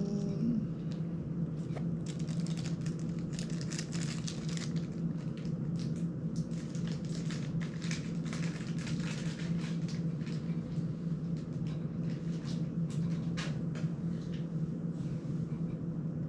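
Hands handling small drone frame and prop-guard parts: scattered small clicks, rustles and crinkles throughout, over a steady low hum.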